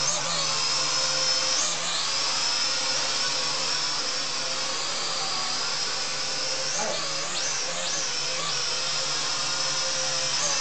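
SNAPTAIN S5C toy quadcopter's four propeller motors running in flight, a steady high-pitched whine that dips and swoops back up a few times as the throttle changes.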